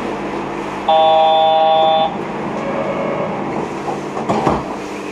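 Electronic buzzer tone at a Yurikamome station platform, a steady chord sounding for about a second: the door-closing warning before departure. It sounds over the low steady hum of the stopped train, and a short thud follows a few seconds later.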